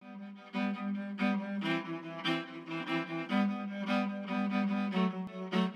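Cello music: a melody of bowed notes changing about twice a second, coming in softly and then playing on at a moderate level.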